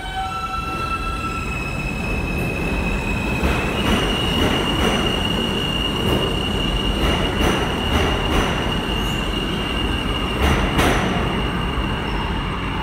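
R160 subway train accelerating out of the station. Its motor whine steps up in pitch over the first few seconds, then holds one steady high tone as the cars roll past. Paired clacks mark the wheels crossing the rail joints.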